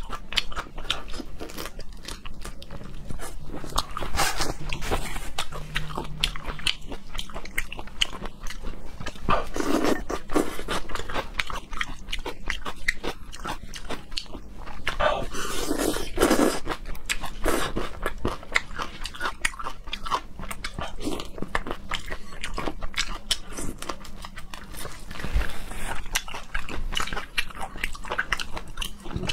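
Close-miked chewing and crunching of spicy shrimp in their shells, a dense run of wet crackles with louder crunches every few seconds.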